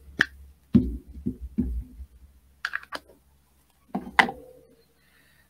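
A clear acrylic stamp block and other craft supplies being handled on a desk, giving a scatter of sharp taps and knocks, about eight in all, the loudest about four seconds in.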